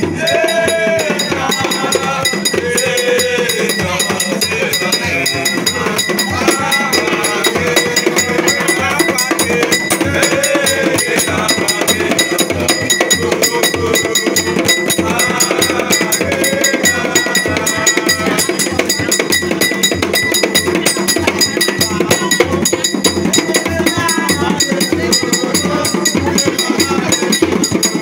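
Live hand-percussion music: a fast, even beat of knocks and bell-like strikes, with voices singing or calling over it.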